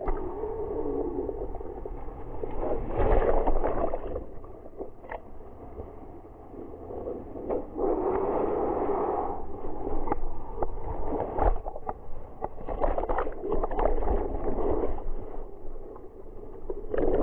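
Water rushing and splashing around a whitewater kayak riding breaking surf, dull and muffled, surging louder and softer as the whitewater breaks over the bow.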